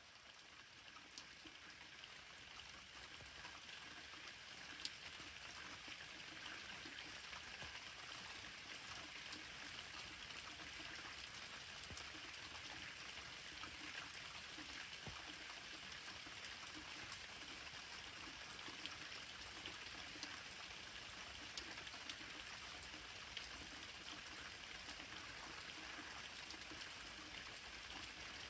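Light rain falling at night: a steady soft hiss with scattered drips and patters.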